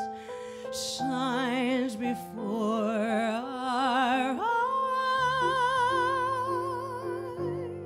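Female jazz vocalist singing with wide vibrato over grand piano accompaniment. About four and a half seconds in, her voice slides up into a long held high note that ends near the close, with piano chords sustained underneath.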